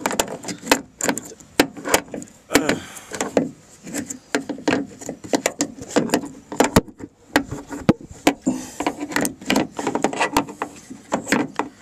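Irregular knocks, clicks and rattles of metal parts being handled inside a Jeep Liberty door as a new door check is worked into place through the door's opening.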